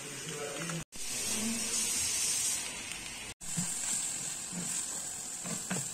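Soya chunk and green pea curry sizzling in a hot pan with a steady hiss, louder for a second or so after the sound drops out abruptly just under one second in; it drops out briefly again after about three and a half seconds.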